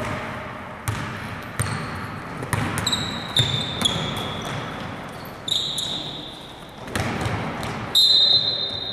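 A basketball bouncing on a gym floor: irregular sharp thuds, each followed by echo in the hall, with several high squeaks between them, the longest about a second near the end.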